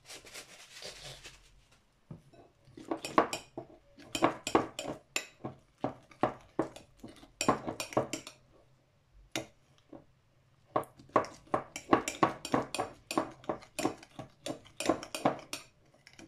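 Metal teaspoon clinking and scraping against a ceramic bowl in quick repeated strokes while clear glue and slime activator are stirred together into slime; the stirring starts a couple of seconds in and pauses briefly about midway.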